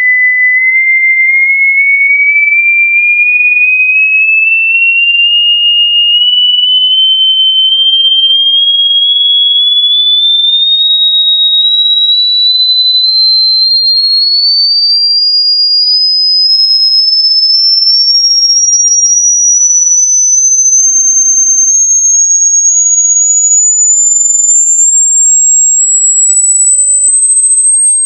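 Pure sine test tone of a hearing-test frequency sweep, rising steadily in small steps from about 2,000 to about 8,500 hertz.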